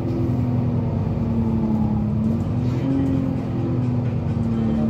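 Otokar Kent C city bus driving along, heard from inside the passenger cabin: a steady engine drone with road noise, its pitch dropping a little about two seconds in and rising again soon after.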